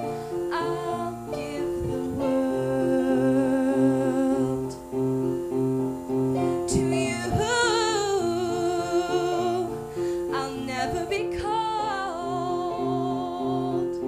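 A woman singing a slow song with vibrato, accompanying herself on a piano or keyboard that plays a steady pattern of repeated chords.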